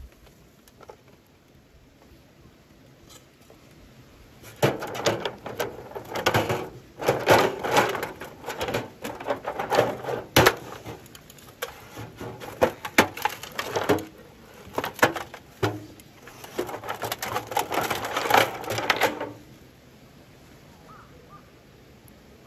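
A long run of clattering and knocking of hard objects, beginning about five seconds in and stopping about four seconds before the end, with quiet before and after.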